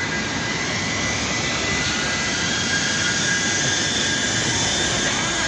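Steady, loud mechanical rush of running workshop machinery, with faint high whining tones held throughout.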